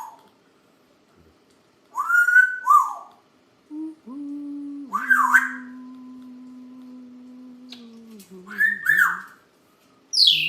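African grey parrot whistling: short loud whistles, mostly in pairs, each sliding up then down, with a final whistle that falls sharply near the end. A steady low hum runs underneath from about four seconds in.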